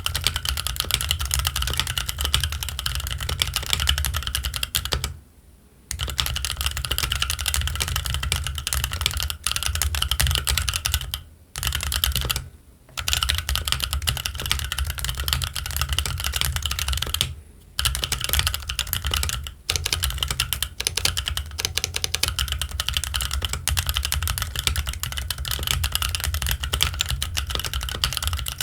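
Fast, continuous typing on a stock Keychron Q1 mechanical keyboard with Gazzew Boba U4T tactile switches and ABS Cherry-profile keycaps: a dense run of keystroke clacks. The run breaks for short pauses about five, eleven, twelve and seventeen seconds in.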